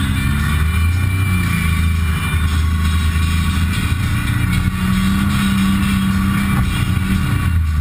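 Side-by-side UTV engine running as it drives a dirt trail, heard from inside the cab; the engine note rises and falls with the throttle.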